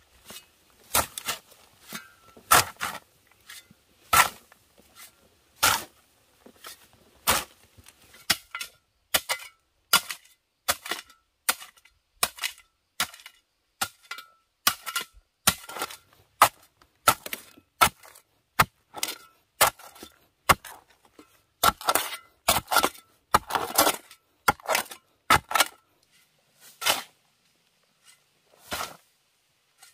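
Metal blade of a long-handled digging tool striking hard, stony red clay over and over, about one or two sharp blows a second and unevenly spaced, many with a short metallic ring.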